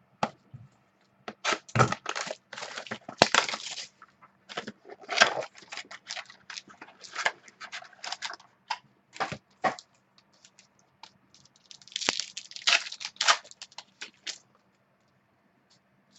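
Trading card pack being torn open and its cards handled: irregular crinkling and crackling of the wrapper and rustling of cards, in clusters with short pauses between them.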